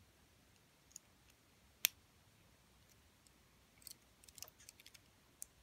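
Small plastic clicks of Lego pieces and joints being handled and snapped into place on a mini Lego figure: one sharp click about two seconds in, a few lighter clicks later, and a quick cluster near the end.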